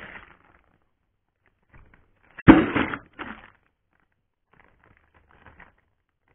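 A plastic-bagged 3D printer part is lifted out of a foam-lined cardboard box. There is a sudden loud thump about two and a half seconds in, followed by about a second of plastic and packing rustling, with fainter rustles near the end.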